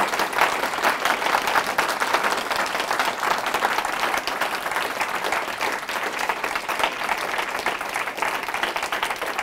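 A small seated audience applauding: dense, steady hand-clapping.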